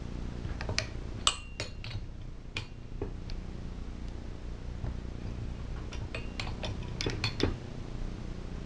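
Torque wrench and socket clinking and clicking on the flywheel nut of a small Tecumseh engine as the nut is tightened to 400 inch-pounds: sharp metallic clicks in short clusters, a few near the start and a busier run late on.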